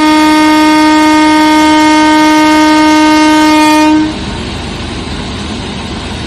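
A train horn sounds one long, steady blast that cuts off about four seconds in. It gives way to the steady running noise of a train.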